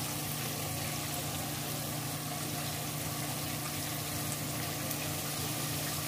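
Battered chicken legs deep-frying in hot oil in a skillet: a steady sizzle, with a low steady hum underneath.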